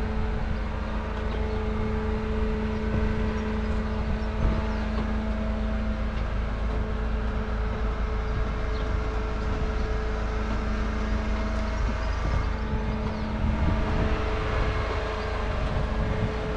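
Tilt-bed tow truck's engine and hydraulics running, a steady hum with a held tone, as the bed is tilted and the car is lowered down it. A single light knock about four seconds in.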